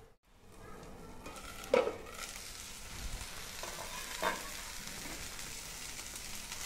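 Sliced onions, tomatoes and green chillies frying in oil in a pan, a steady sizzle that grows louder and brighter after about two seconds. Two short ticks sound over it, about two and four seconds in.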